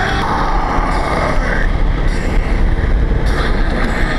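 Kawasaki Versys 650 parallel-twin motorcycle on the move: engine running under steady wind and road rush.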